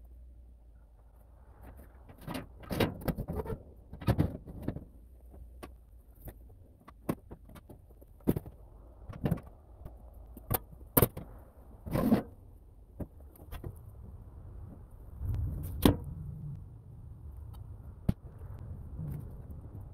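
Irregular metal clunks, knocks and clatters as loose parts and panels are lifted out of a steel tub and dropped aside, with one sharp bang about three-quarters through.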